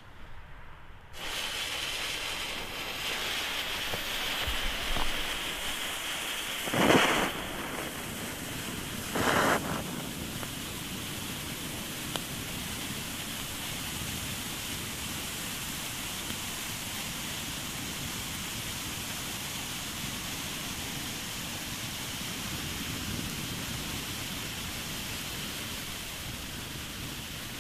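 Two Jorge Gold and Blue Flame firework fountains burning, a steady hissing rush of sparks that starts about a second in. It surges louder twice, briefly, about a quarter and a third of the way through.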